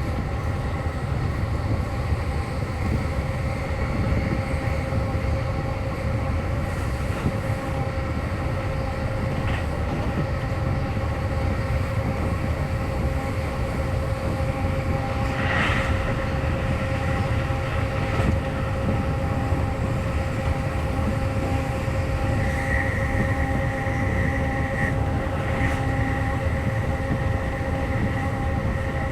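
Running noise heard from inside a JR East E531 series electric train at steady speed: a continuous low rumble with a steady whine of several held tones. A brief sharper noise comes about halfway through.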